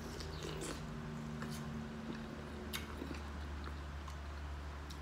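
Biting and chewing corn on the cob, with a few sharp clicks, over a steady low hum.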